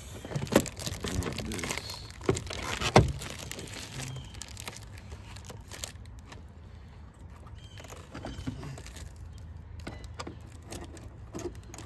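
Plastic protective wrap crinkling and sharp plastic clicks and knocks as a tail light housing is handled and pressed into place on the car body, loudest over the first three seconds. After that come quieter scattered handling sounds.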